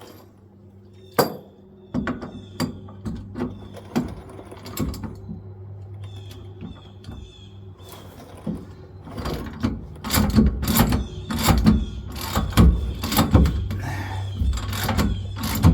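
Hand-tool work on a pickup truck's rear shock mounting bolts: scattered sharp metal clicks, then a run of loud, short metallic strokes about two or three a second in the second half, over a steady low hum.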